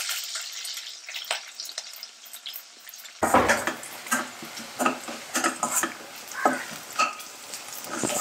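Shallots, dried red chillies and curry leaves sizzling in hot oil in a small steel kadai, a tempering being fried. From about three seconds in, a slotted metal spatula scrapes and clinks against the pan as the mix is stirred.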